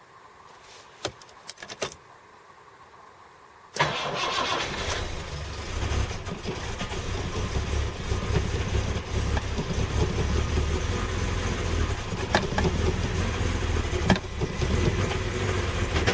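A few faint clicks, then a Series 1 Jaguar XJ6's XK straight-six fires up about four seconds in and runs unevenly. It is struggling on a cold start without a choke, leaning out under too much throttle.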